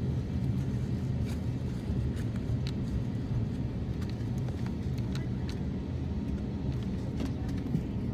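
Steady low rumble inside an airliner cabin as the jet rolls along the ground, with occasional faint clicks and rattles.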